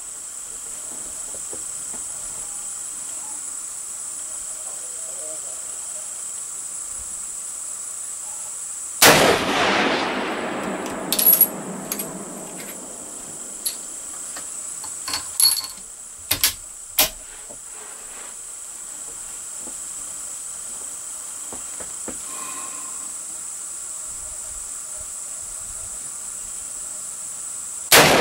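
Two rifle shots from a Ruger No. 1 single-shot in 7x57 Mauser, one about nine seconds in and one at the very end, each trailing off in a long echo. Between them comes a run of sharp metallic clicks as the falling-block action is worked and reloaded. A steady high whine of insects runs underneath throughout.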